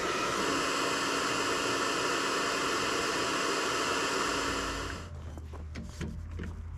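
Hand-held hair dryer blowing steadily against a frozen van door lock to thaw it, cutting off suddenly about five seconds in. After that, a low hum and a few light clicks and knocks.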